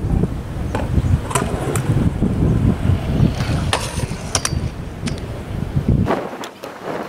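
Stunt scooter rolling over concrete with a rumble from its wheels, whose bearings are shot and which has a chunk out of it, and several sharp clacks as deck and wheels hit the ledge. The rolling stops about six seconds in.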